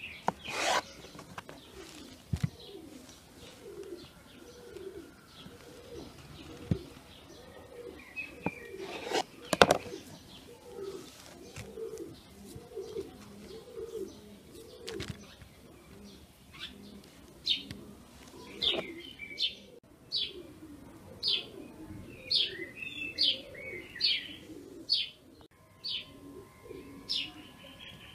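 Pigeons cooing over and over in the background, joined in the second half by quick, regular small-bird chirps. A knife knocks on a wooden cutting board about half a second in, and a few more sharp knocks follow, the loudest about ten seconds in.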